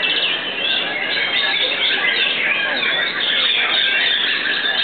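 White-rumped shamas (murai batu) singing at once in their cages: a dense, steady chorus of overlapping quick whistles and chattering phrases.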